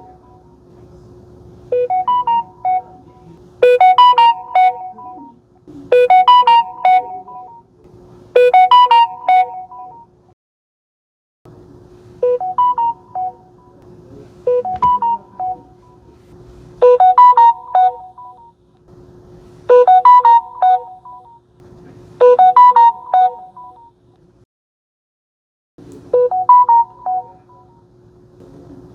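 Samsung Galaxy phones playing their notification chime, a short tune of a few notes, over and over. In each run the first chime, at 50% volume, is clearly quieter than the following ones at 100% volume. Brief silences fall between the runs from one phone to the next.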